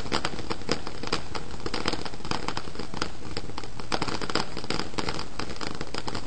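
Ground fountain firework spraying sparks, a steady hiss broken by dense crackling, many sharp pops every second.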